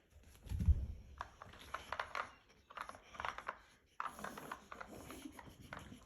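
Plastic dog puzzle toy being worked: a thump, then bursts of light clicking and scraping as its pieces and compartments are pushed and knocked about.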